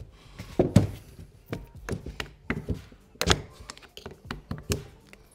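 Flathead screwdriver prying and levering at the seized housing of an old BMW electric water pump, giving irregular clicks and knocks, with the sharpest knocks a little past halfway.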